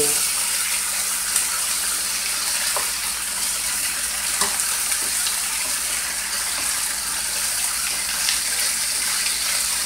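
Browned beef short ribs with onions and green pepper sizzling steadily in a hot skillet, with a few light clicks of a utensil against the pan as the meat is turned.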